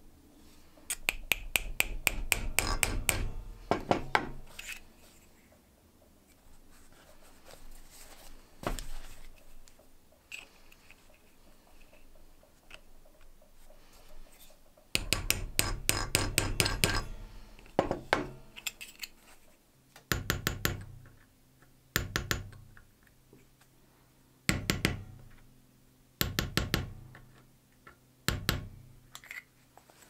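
Light metal taps on a thin brass lighter shell as a nail-made dent tool is worked against it to push out dents: two quick runs of rapid taps, then single and paired taps every second or two with a short ring, the later ones from a small ball-peen hammer striking the tool.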